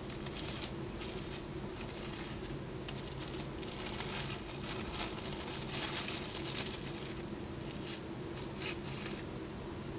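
Plastic cling film crinkling and crackling irregularly as fingers tear openings in it at the mouth and nose and press it down over a wet sheet mask, with a faint steady low hum underneath.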